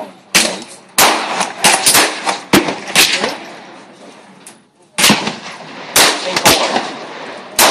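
Handgun firing: about ten sharp shots at uneven spacing, several close together in the first three seconds, then a pause of about two seconds before more shots.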